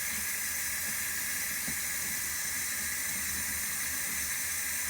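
Steady, even hiss of running water, as from a bath tap left running.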